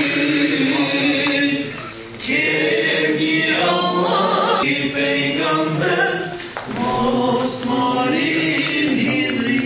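A group of voices singing together in long held notes, with short breaks in the singing about two seconds and six and a half seconds in.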